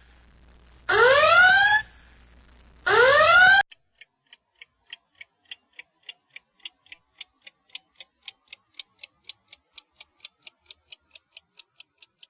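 Electronic alarm sound effect: two rising whooping sweeps, then a fast run of short high electronic blips, about four to five a second, fading near the end.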